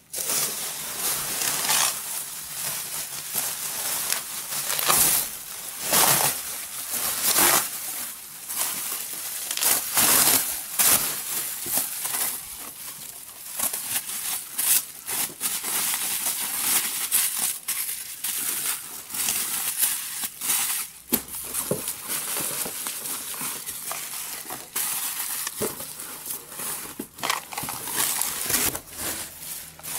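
Plastic bubble wrap crinkling and rustling continuously as it is handled and wrapped around an item, with frequent sharp crackles.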